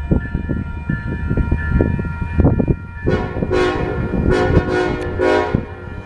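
Union Pacific EMD SD70ACe locomotive horn sounding a run of short blasts from about three seconds in, over the steady ringing of the grade-crossing bell.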